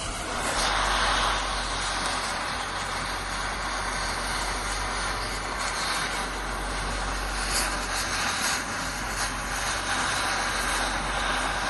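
Oxy-fuel cutting torch roaring steadily as it cuts out a steel bushing, with a low steady hum underneath.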